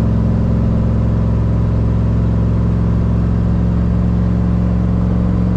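Steady engine and road drone inside the cab of a 1991 pickup truck cruising at an even speed while towing a loaded trailer.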